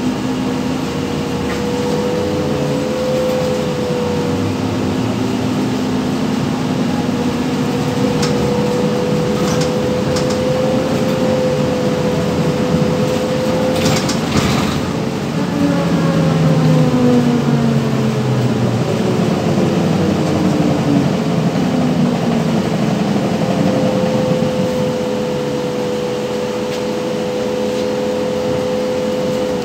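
Inside a moving ZiU-682G-012 trolleybus: a steady electrical hum over road and body noise, with the traction motor's whine gliding in pitch as the vehicle changes speed past the middle. There is a short burst of clicking about halfway through.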